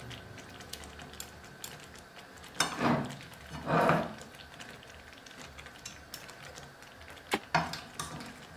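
Metal tongs setting chicken breast pieces into thick gravy in a frying pan: two louder handling sounds about three and four seconds in, light ticks and scrapes of the tongs, and two sharp clicks against the pan about seven and a half seconds in.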